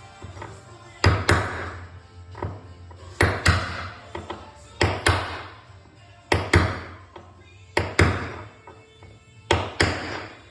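Hammer blows driving a cartridge bearing into a bicycle rear hub shell, struck on the bearing's outer ring: six pairs of sharp metallic taps about a second and a half apart, each ringing briefly.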